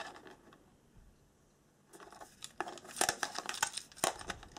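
A plastic compact cassette and its hard case being handled: a run of sharp plastic clicks and small rattles with some rustling, starting about two seconds in.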